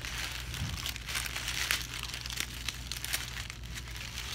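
Burrito wrapper crinkling and crumpling as it is handled and peeled back: a steady run of small crackles.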